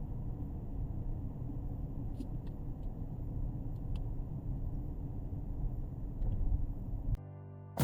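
Steady low road and engine rumble of a 2017 Kia Sorento heard from inside the cabin while driving, with a few faint ticks. The rumble cuts off abruptly about seven seconds in.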